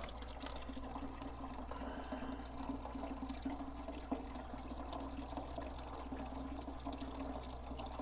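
Water running through the hoses and tank of a compost-powered water heater, circulated by its pump, over a steady low hum.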